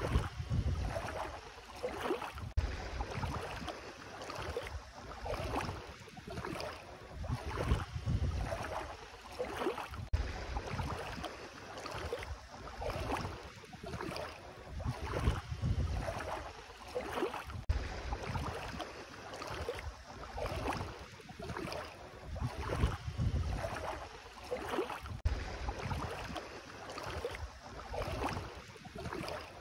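Bare feet wading through shallow seawater, a splashing swish with each step that swells and fades in a steady walking rhythm.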